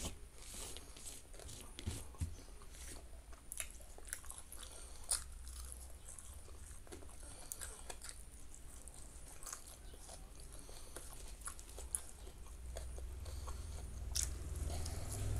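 Close-up mouth sounds of eating by hand: chewing and crunching raw vegetables such as fresh lemon basil leaves and bean sprouts with rice, with many small wet clicks. A low rumble builds near the end.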